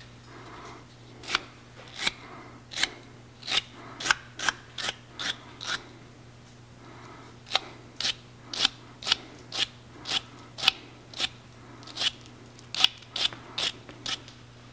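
A wire brush scrubbing a threaded pipe fitting clean, in quick scraping strokes about two a second. The strokes come in two runs with a short pause in the middle.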